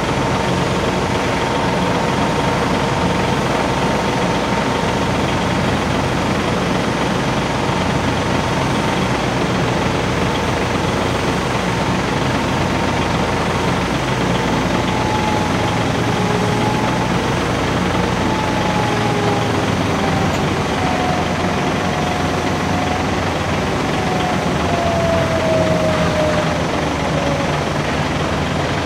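Heavy machinery's diesel engine running steadily during a crane lift of a Shinkansen car, a dense low rumble with a thin whine on top that slowly falls in pitch over the second half.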